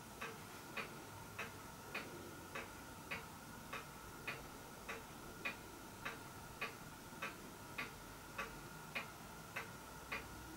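Jowitt poppet-valve model steam engine turning over steadily under a motor drive, giving a regular mechanical ticking of just under two clicks a second over a faint steady whine.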